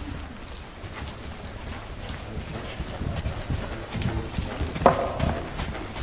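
A KWPN horse's hooves thudding on arena footing under a rider, a dull uneven beat, with a louder sharp sound about five seconds in.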